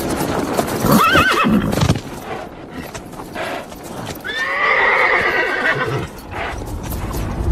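Horse whinnying twice: a short wavering call about a second in, then a longer one that falls in pitch around the middle, among sharp knocks.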